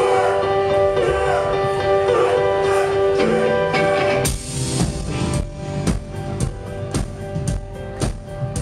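Live rock band playing: sustained chords with electric guitar, then about four seconds in the drums come in with a steady beat of roughly two to three hits a second.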